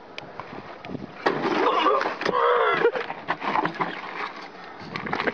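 A man's voice calls out loudly for a second or two, amid scattered knocks and scrapes from handling a heavy truck tyre on gravel.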